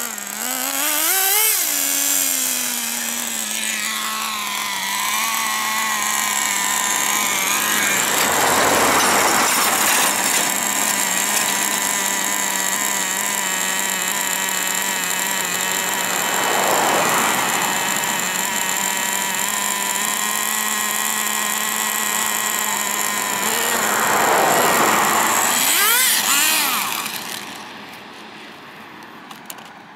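Nitro RC car's small two-stroke glow engine running with a steady high whine, swelling louder three times about eight seconds apart. The sound falls away near the end.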